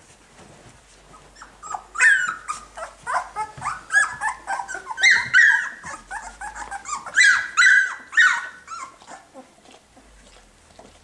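A litter of young puppies whining and squealing in many short, high, sliding cries, with the loudest outbursts about two, five and seven seconds in; the cries die away near the end.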